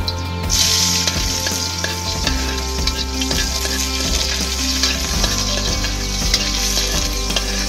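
Pieces of pork hitting hot oil in a wok: a loud sizzle starts about half a second in and settles into steady frying, with spatula scrapes against the wok as the meat is stirred.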